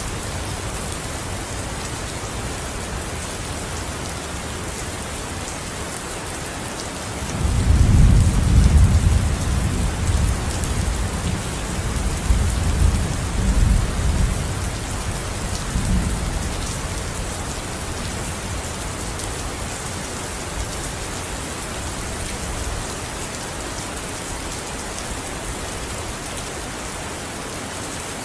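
Steady rain falling, with a long roll of thunder that breaks in about seven seconds in, rumbles on in several swells and fades away over the following fifteen seconds.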